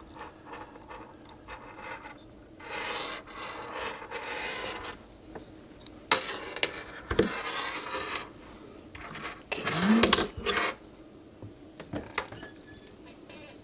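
Plastic Wi-Fi antenna base and its cables being handled: uneven rubbing and scraping, with a few sharp clicks.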